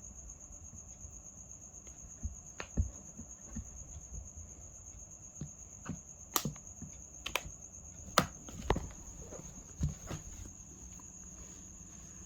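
Crickets chirring in a steady high drone, with about eight scattered clicks and knocks in the middle of the stretch.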